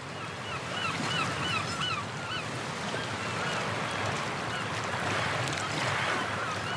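Strong sea wind and surf noise, with a bird calling a quick run of short repeated notes in the first two seconds and a few fainter ones after.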